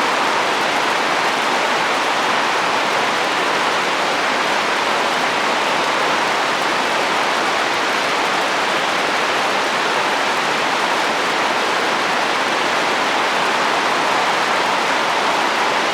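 Steady rain falling on a roof in a windy rainstorm: an even, unbroken hiss with no separate drops, knocks or gusts standing out.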